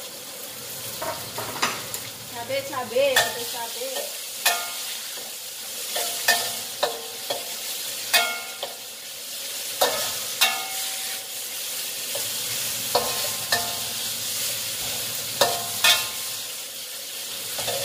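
Ground spice paste and green chillies sizzling in hot oil in a wok, while a spatula stirs them with irregular ringing clinks and scrapes against the pan.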